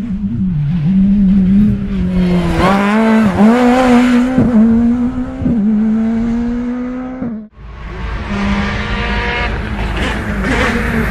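A rally car's engine at high revs, its pitch climbing and then dropping sharply at each of several gear changes. About seven seconds in it cuts off suddenly, and the engine of an approaching rally car comes back in.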